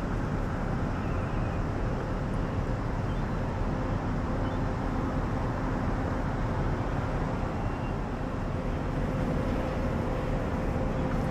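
Steady low rumble of distant city and harbour traffic, with a faint steady hum through it.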